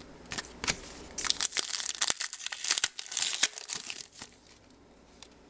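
Plastic wrapper of a trading-card pack crinkling and tearing as it is opened by hand. The crackling is densest in the middle and stops about four seconds in.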